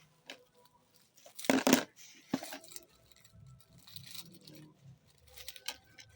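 Plastic packaging rustling and crinkling as a parcel is unwrapped by hand, with a loud burst of crackling about a second and a half in and scattered smaller clicks and rustles after.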